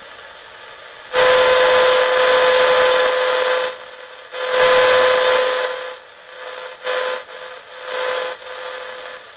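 Shortwave receiver hissing with the RX1 noise bridge's noise, a steady tone running through the hiss. The hiss swells loud twice and then comes in three shorter, weaker surges, dropping low in between, as the bridge's reactance control is swung off and back onto the null.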